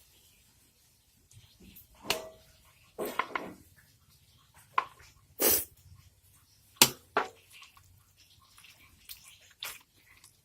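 Irregular short splashes and sloshes of water in a small container, with a few sharp knocks, as food is handled in it.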